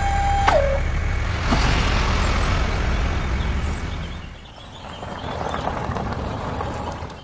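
Vehicle noise: a steady horn-like tone that breaks off with a drop in pitch just after the start, then a rough engine-like rumble that sags about four seconds in and picks up again.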